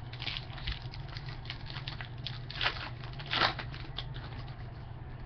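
A 2013 Topps Finest baseball card pack wrapper being torn open and crinkled by hand. It makes a run of short rustles, with two louder rips in the middle, over a low steady hum.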